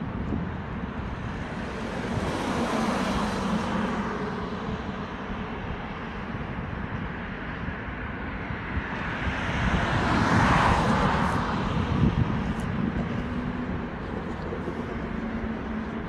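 Road traffic passing: two vehicles go by, their noise swelling and fading, the louder one about ten seconds in, over a steady low rumble.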